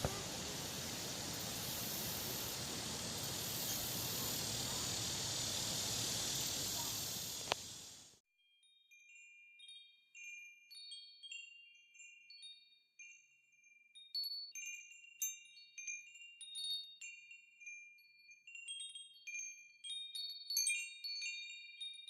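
Steady rushing-water noise that cuts off abruptly about eight seconds in. It is followed by wind chimes tinkling: many scattered high, clear ringing notes, each fading away.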